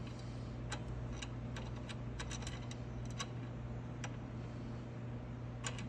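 Scattered light metallic clicks of steel washers and a bolt being fitted by hand onto an ATV's front spindle, over a steady low hum.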